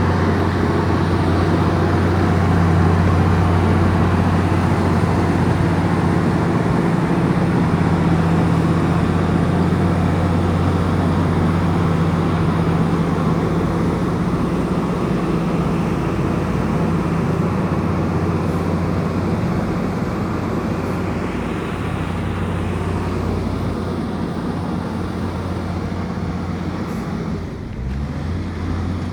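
Komatsu bulldozer's diesel engine running steadily under load, with a deep even hum. Near the end it eases off briefly and then rises in pitch.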